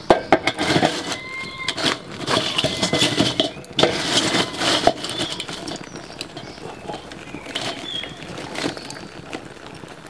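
Clay bricks knocked and scraped against the metal fire bowl and the charcoal as they are set in place: a quick series of knocks and scrapes through the first five seconds or so, then a few lighter knocks.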